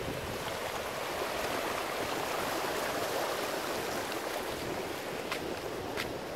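Shallow surf washing and hissing over the sand, steady, with a couple of sharp ticks about five and six seconds in.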